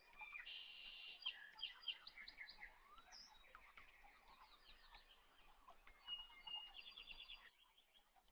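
Small birds chirping faintly, with many short high notes and quick trills.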